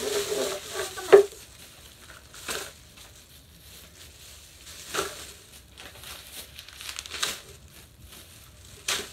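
Plastic shopping bag rustling and crinkling as it is handled, in scattered short bursts, the loudest a sharp crackle about a second in.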